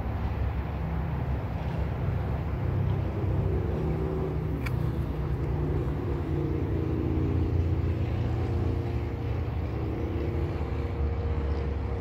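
Aerosol tire-sealant can discharging through its hose into a flat tire's valve stem: a steady low rumbling hiss with wavering tones, the sealant and propellant still going in. A single sharp click about halfway through.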